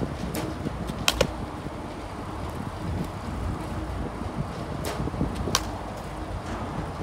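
Several sharp knocks in a batting cage, the one about five and a half seconds in being a softball striking a composite bat on a swing, over low wind rumble on the microphone.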